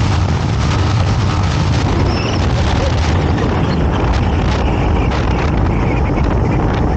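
Motorcycle on the move: steady wind rushing over the microphone with the engine's low running underneath.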